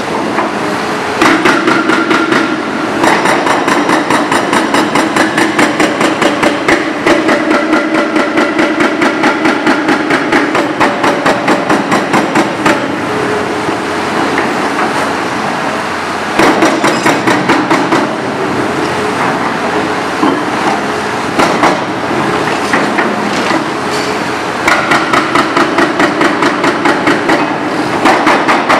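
Hydraram FX 680 hydraulic hammer on a Doosan DX 490LC-3 excavator pounding into rubble with rapid, evenly spaced blows. It works in bursts of a few seconds to about ten seconds, and the excavator's engine runs steadily in the pauses.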